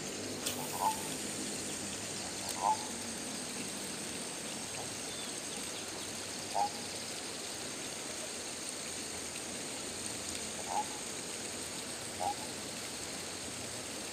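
Short single animal calls, about five of them, each a brief note a second to four seconds apart, over a steady high hiss.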